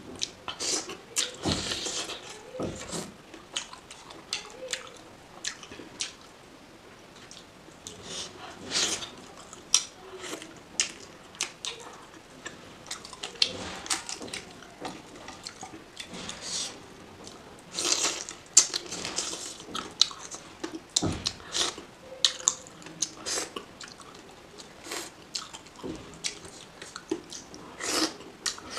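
A person biting and chewing pieces of oily chicken curry eaten by hand, with many short, wet mouth clicks and smacks coming irregularly.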